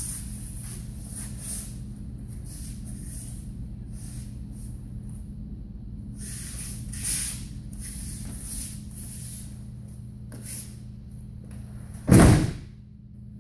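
Judoka thrown onto tatami mats, landing in a breakfall: one loud slapping thud near the end. Before it come soft scuffs of bare feet and rustles of judo gi on the mats.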